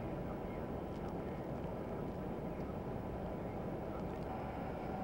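Hurricane-force wind rushing steadily in the storm, a dense, even noise with no let-up.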